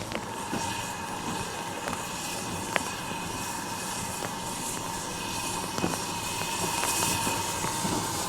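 Railway train sounds: steady even noise with a faint steady whine and scattered light ticks and taps.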